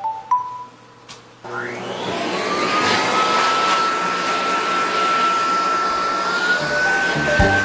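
High-velocity pet dryer blowing through its hose without a concentrator cone: it switches on about a second and a half in, the motor winding up in a rising whine to a steady high whine over a strong rush of air, with the pitch stepping slightly higher near the end.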